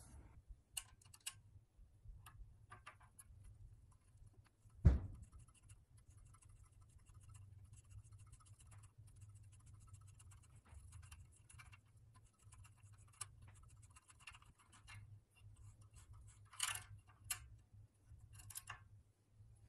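Mini tube cutter scoring thin brass tubing: a faint run of light clicks and scratches as the tube turns against the cutting wheel, with a few louder clicks near the end. One sharp knock sounds about five seconds in.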